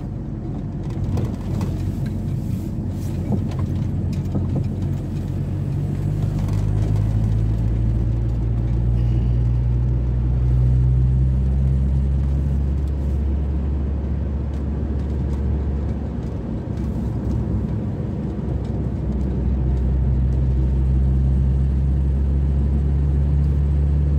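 VW T4 van's engine and road noise heard from inside the cab while driving. The engine note rises over the first half of the stretch, eases off about two-thirds through, then rises again near the end.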